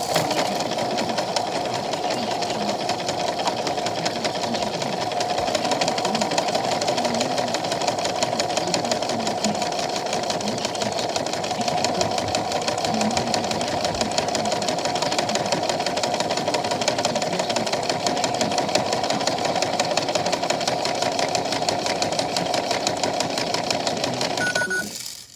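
Washing machine running with a fast, even rattle that holds steady for the whole stretch. It stops abruptly near the end, just after a short beep.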